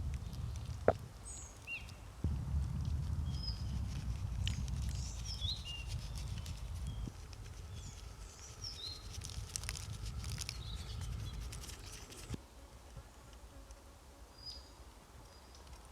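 Birds chirping in a forest over a low rumble that cuts off abruptly about twelve seconds in, with scattered small clicks and patter throughout.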